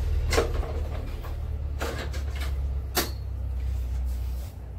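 A few sharp knocks or clatters, about a second apart, over a steady low hum that drops away near the end.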